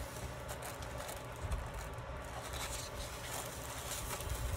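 Soft rustling of paper and tissue paper as handmade paper journal pockets are handled and leafed through, with a few light brushes and taps.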